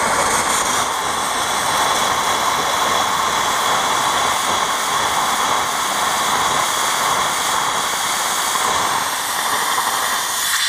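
Propane hissing steadily out of a gas cylinder's bleed valve as a white spray of liquid propane, while an overfilled cylinder is being vented. Liquid rather than vapour coming out is the sign that the cylinder is completely full.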